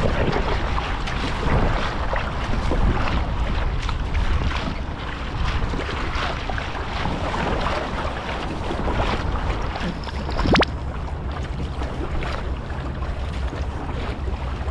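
Wind buffeting the microphone over water splashing and slapping against a kayak on choppy sea. A brief sharp click with a thin high tone comes about two-thirds of the way through.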